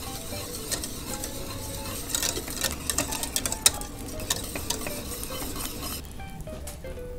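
Thick béarnaise sauce (egg yolks and butter) being stirred in a stainless steel saucepan over low heat: a wet, scraping stir with sharp clicks of the utensil against the pan, busiest in the middle, stopping about six seconds in.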